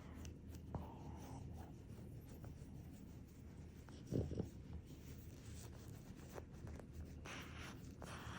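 Faint scratchy rustling of a hand stroking a sleeping Boston terrier's fur. A brief low snort comes about four seconds in, and a soft breathy puff near the end.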